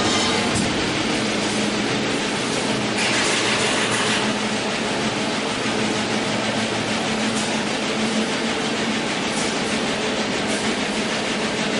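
Razor wire forming machine running, crimping blade tape onto steel wire: a steady metallic clatter, briefly louder and hissier about three seconds in.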